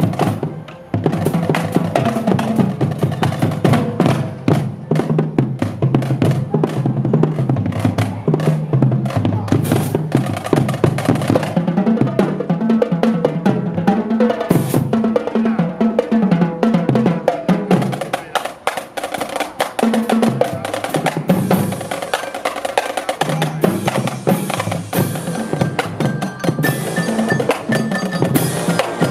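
Marching band drum line playing a fast percussion feature: rapid snare and tenor-drum strokes over bass drums at several pitches, with cymbal crashes. A few ringing higher notes join near the end.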